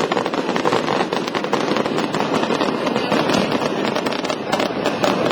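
Fireworks display going off in a dense, continuous crackle of many rapid small bangs overlapping one another.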